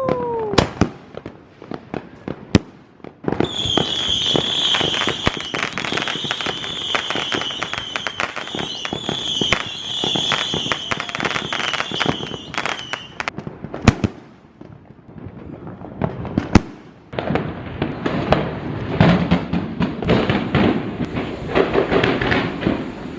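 Street fireworks and firecrackers going off: a steady barrage of sharp pops and strings of crackling, thickest in the last few seconds. A high, wavering whistle runs through the pops from about 3 to 13 seconds in.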